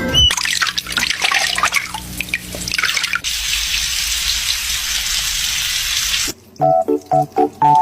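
Water running from a tap or shower: spattering and dripping with small splashes at first, then a steady even flow that cuts off abruptly about six seconds in. Light music of short plucked notes then begins.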